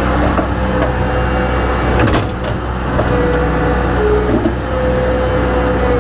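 A motor vehicle's engine running steadily, with a short clatter about two seconds in.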